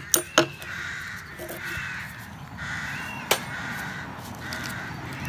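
Rooks cawing over and over, many harsh calls in quick succession. A few sharp knocks come near the start and one more about three seconds in.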